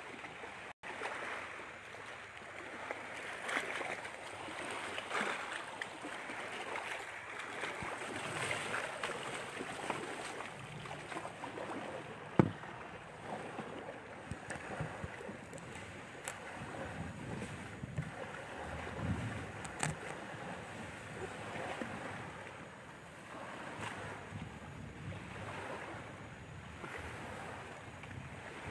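Outdoor wind buffeting a phone's microphone, an uneven rushing noise that swells and eases in gusts, with one sharp knock about twelve seconds in.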